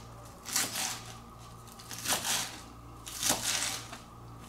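Chef's knife slicing through crisp iceberg lettuce on a plastic cutting board, three crunchy cuts a little over a second apart.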